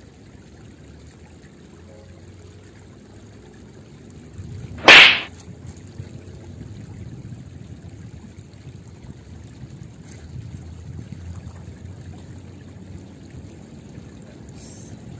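Outdoor riverside ambience: a steady low rumble with trickling water. About five seconds in comes one loud, sharp burst lasting under half a second.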